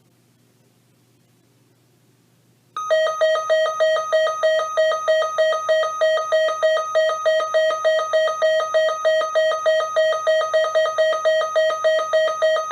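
Weather radio receiver's alert alarm set off by a required weekly test: a shrill electronic beeping, about three pulses a second, that starts suddenly a few seconds in and sounds without a break.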